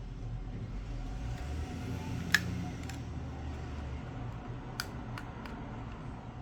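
A few sharp clicks and taps of small hand tools against a phone during a screen repair, one louder about two seconds in, over a low steady hum.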